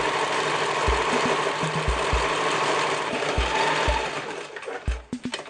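Sewing machine set to a wide zigzag, running steadily as it stitches through Velcro hook-and-loop tape, then slowing and stopping near the end, followed by a few sharp clicks.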